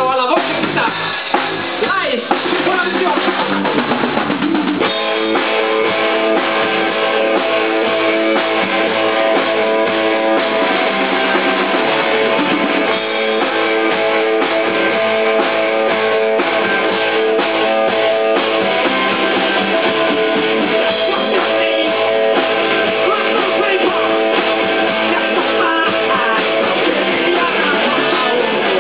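A rock band playing live: electric guitar, electric bass and drum kit. About five seconds in the sound settles into steady sustained chords over the beat.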